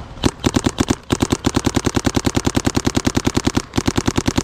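Paintball marker firing rapid strings of shots, about ten a second, with two brief pauses between strings.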